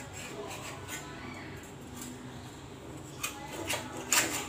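Koi fish (climbing perch) frying in oil in a pan, with a spatula scraping and knocking against the pan as the fish are turned over. A click a little past three seconds, then two louder scrapes near the end, the last one the loudest.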